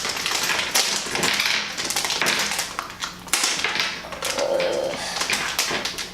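Plastic packaging crinkling, with irregular taps and clicks as mystery pin packs are handled and laid down and one is worked at to open it.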